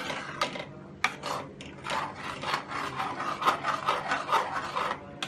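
A ladle scraping and rubbing around a steel pot while stirring thick yogurt-masala curry gravy, in a run of uneven strokes.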